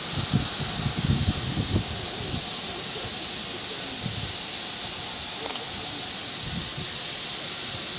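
Steady hiss of escaping steam from a steam locomotive, with a few irregular low thumps in the first two seconds.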